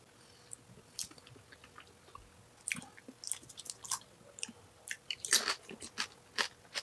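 Panipuri being eaten: crisp hollow puri shells crunching and being chewed in scattered short crackles, the loudest a little after five seconds.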